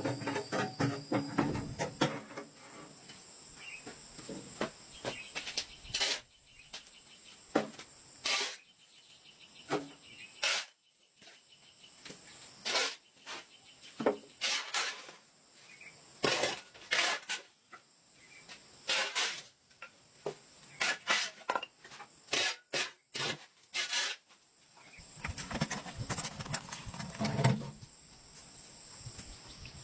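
Irregular sharp knocks and taps of hand-tool work on timber, over a steady high chirring of insects.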